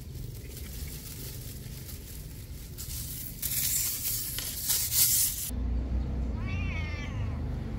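A cat gives one wavering meow, about a second long, near the end. Before it comes a loud rush of noise lasting about two seconds, which cuts off suddenly.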